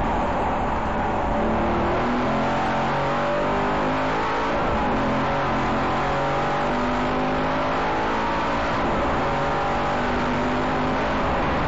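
Aston Martin Vantage engine heard from inside the cockpit at full racing pace, its pitch stepping up and down as it revs through the gears, over steady road and wind noise.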